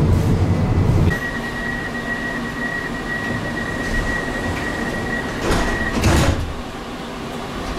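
Tram door-closing warning: a steady high beep for about five seconds, then the doors shut with a thump just as the beep stops.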